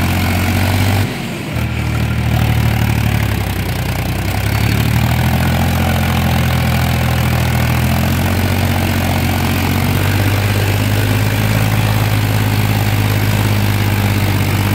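Tractor engine running steadily under load while working a flooded paddy field. Its steady hum dips briefly about a second in, then picks up again.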